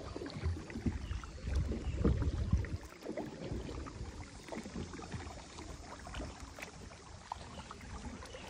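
Kayak being paddled: paddle blades dipping and water splashing and lapping against the plastic hull, with a low rumble during the first three seconds.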